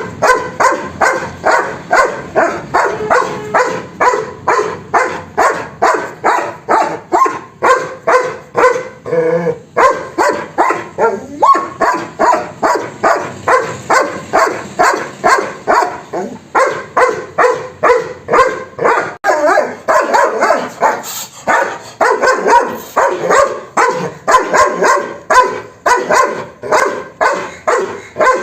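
Dog barking rapidly and continuously, about three barks a second, with a brief looser stretch about nine seconds in.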